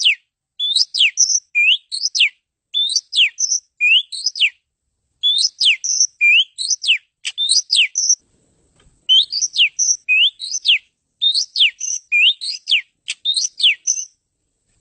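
Oriental magpie-robin (kacer) singing: the same short phrase of rising and steeply falling clear whistles, repeated about once a second, breaking off near the end.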